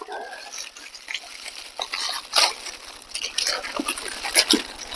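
Plastic sandwich wrapper crinkling and crackling in uneven bursts as a hoagie is unwrapped.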